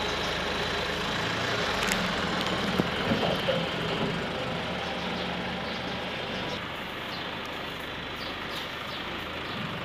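A steady low mechanical hum, like an engine running, over a constant noisy background, with a few faint knocks in the first few seconds.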